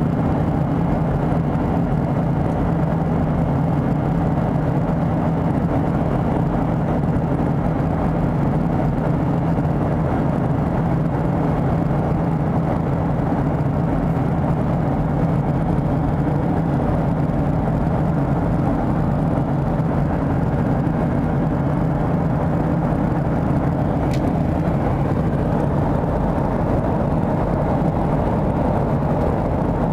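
Steady cabin drone of a Boeing 737-700 in flight, from the engines and the air rushing past the fuselage, even and unchanging with a low hum underneath.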